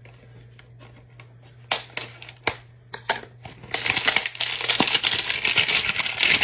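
Trading-card pack wrapper handled with a few sharp crackles, then, just under four seconds in, crinkling loudly and continuously as it is torn open and crumpled.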